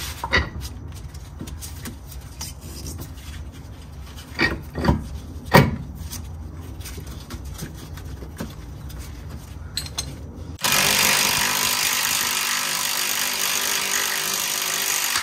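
Milwaukee cordless impact wrench hammering on a nut under the front suspension, starting abruptly in the last third and running steadily at full rattle. Before it, a few metal tool clinks and knocks about four to six seconds in.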